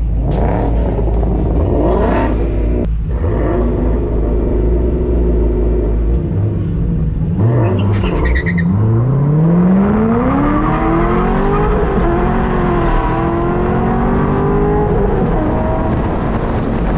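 Car engine heard from inside an open-top convertible: a steady low rumble at first, then a little past the middle it revs up as the car pulls away, its pitch rising for about two seconds before levelling off at a steady cruise.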